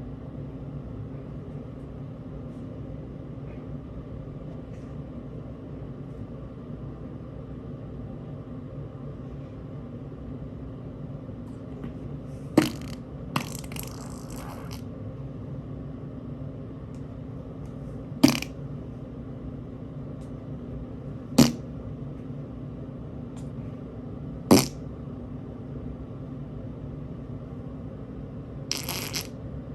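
Steady low hum with five sharp clicks or taps a few seconds apart, starting about twelve seconds in, and a brief hiss near the end.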